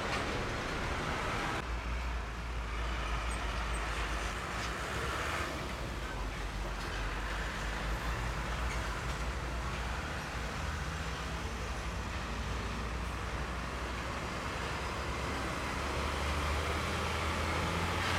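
Road traffic with heavy diesel trucks moving slowly past, a low, steady engine sound throughout; a truck's engine grows louder near the end.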